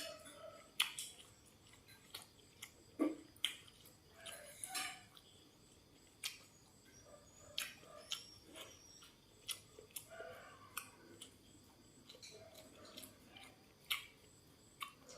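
A person eating, with irregular sharp crunches and chewing sounds from the bites.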